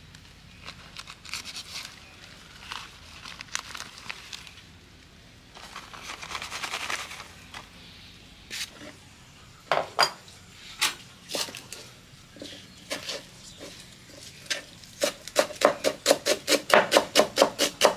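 Thin herb stems rustling and snapping as they are picked by hand, then a knife chopping greens on a wooden cutting board: a few separate strokes at first, then a fast, even run of about four chops a second near the end.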